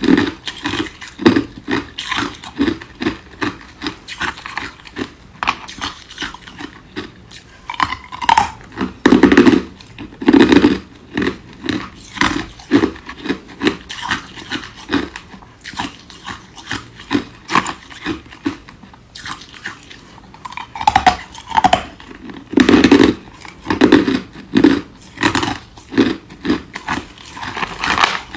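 Ice cubes being bitten and chewed close to the microphone: a steady run of crunches, one or two a second, with heavier bites a third of the way in and again about three quarters through.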